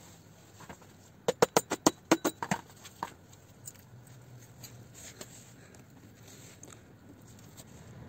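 A quick run of about ten sharp knocks on a turbocharger housing, about seven a second, then one more knock, while the housing is being worked loose from the core.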